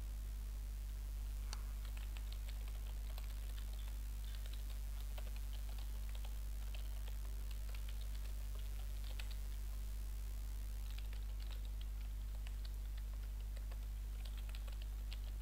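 Typing on a computer keyboard in quick runs of keystrokes, with a short pause about ten seconds in. A steady low hum runs underneath.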